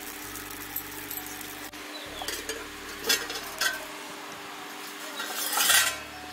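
Steel cookware being handled around a clay wood-fired stove: a few light metal clinks, then a louder scrape of metal about five and a half seconds in, over a faint steady hum.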